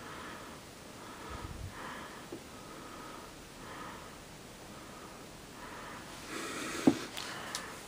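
A person breathing through the nose close to the microphone, soft puffs about once a second. Near the end comes a rustle of handling and a sharp click.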